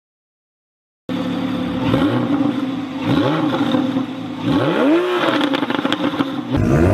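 A performance car's engine is blipped four times, its pitch rising and falling with each rev, with sharp exhaust crackles and pops as the revs drop. It starts after about a second of silence, and a different engine sound cuts in near the end.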